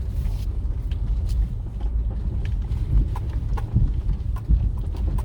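Low, steady rumble of a vehicle travelling over a rough, unpaved road under construction, with scattered knocks and rattles from the bumps.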